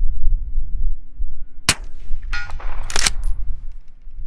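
Gunfire sounds over a low rumble: a sharp shot a little under two seconds in and a pair of shots close together about three seconds in.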